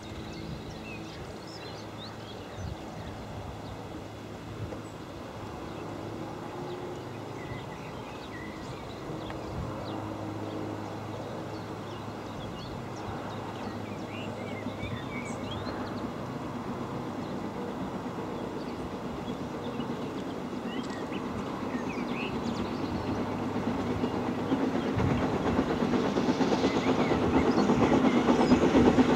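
LMS Princess Coronation Class 4-6-2 steam locomotive 46233 Duchess of Sutherland approaching under steam with its train, the sound growing steadily louder as it nears.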